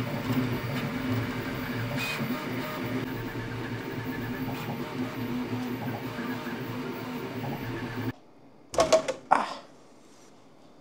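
Creality K1 Max 3D printer running a print: a steady hum of motors and fans with shifting motor tones. The sound stops abruptly about eight seconds in, and two short sharp clacks follow as the build plate is handled.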